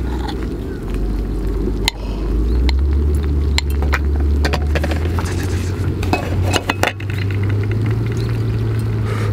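Wooden chopsticks clicking and scraping against a turban snail shell as the coiled meat is twisted out, a run of sharp clicks thickest in the middle. A steady low rumble runs underneath.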